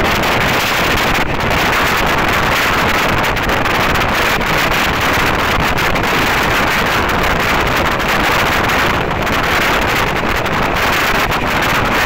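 Steady rush of wind buffeting the microphone at the open door of a moving train, over the running noise of the train on the track.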